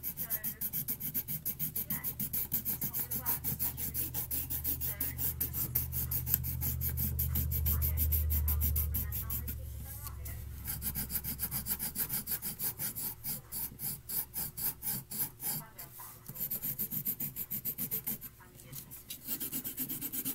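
Colouring pencil scribbling fast on paper, a rapid, even run of scratchy back-and-forth strokes with a couple of short breaks. A low hum swells and fades around the middle.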